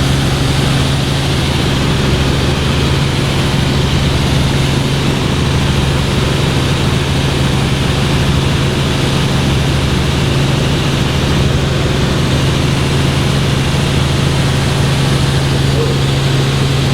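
Helicopter engine and rotor noise, a steady loud drone with a constant low hum under a wide hiss.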